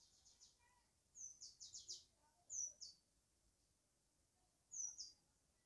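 A small bird chirping in short, high-pitched bursts of quick notes, about four times at irregular intervals, with near silence in between.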